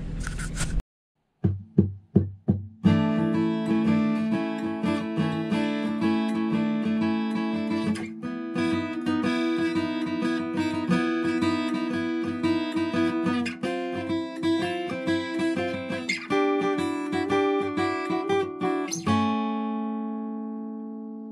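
Acoustic guitar music: a few single plucked notes, then steady strumming, ending on a chord that is left to ring out and fade.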